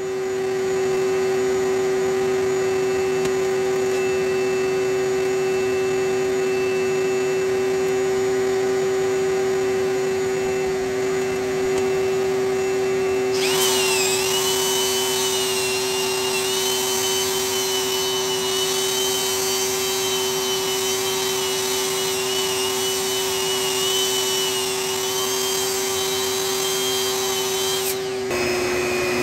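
An electric motor runs steadily at one pitch. About halfway through a higher, wavering whine and hiss join it, then drop away just before the end.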